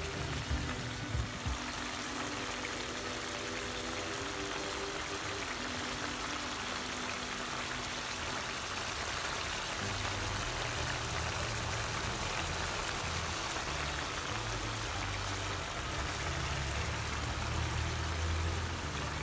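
Chicken in tomato sauce simmering in a frying pan: a steady bubbling sizzle.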